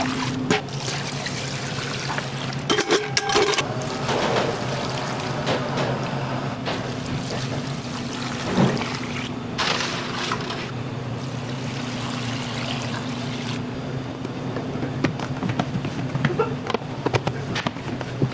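Soy sauce marinade pouring and splashing over raw crabs, with short knocks and clatter from handling steel pots and plastic containers. A steady low hum runs underneath.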